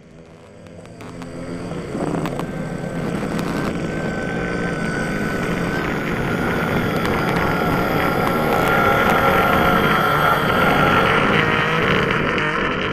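A loud, dense rumbling noise like an engine, used as a menacing sound effect. It swells over the first two seconds and then holds steady.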